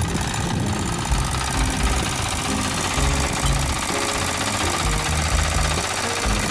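Single-cylinder diesel engine of a 9 hp walk-behind tractor idling steadily with a knocking chug, kept running after the breakdown.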